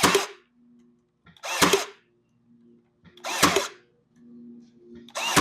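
A Ryobi power stapler firing staples into cedar fence pickets four times, about two seconds apart, each shot short and loud.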